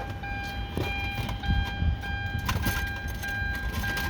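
Plastic interior trim being handled and pried at: scattered clicks and rattles over a steady low rumble and a faint steady whine.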